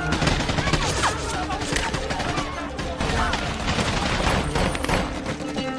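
Dense battle gunfire: many rifle and machine-gun shots in quick succession, over a film score with steady low tones.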